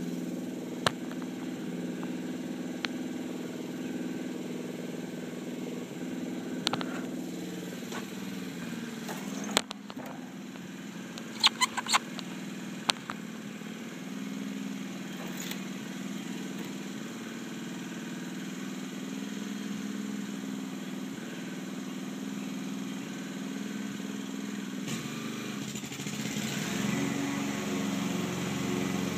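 Gas-powered push lawn mower engine running steadily while cutting grass, getting louder near the end as it comes closer. A few sharp clicks sound over it in the first half.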